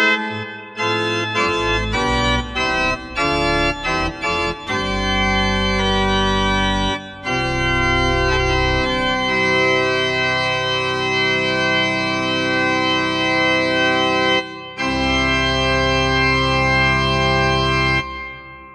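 Dexibell Classico L3 digital classical organ playing full chords with deep bass: short detached chords at first, then long held chords briefly lifted twice, and a final chord released near the end that dies away in reverberation.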